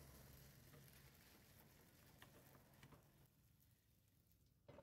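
Faint sizzling and tiny crackles of ba-bin batter (glutinous rice flour, young coconut and corn) frying on low heat in a nonstick pan, with a light knock near the end.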